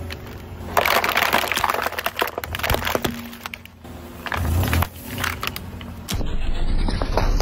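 Plastic bottles crackling and crunching under a car tyre as it rolls over and flattens them, with sharp cracks. A low rumble near the end.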